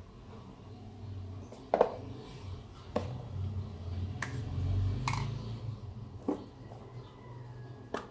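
A 4-16x44 BSA air rifle scope being turned over and handled: about six scattered clicks and knocks, the loudest about two seconds in, over a low hum.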